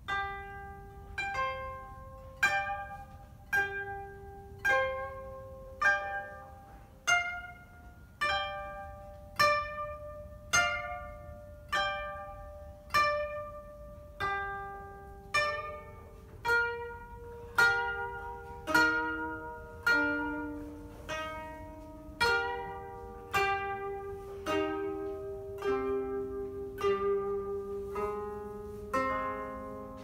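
Two koto playing a slow duet: plucked notes and chords about once a second, each ringing and fading away. From about halfway more notes fill in between the beats and lower notes join.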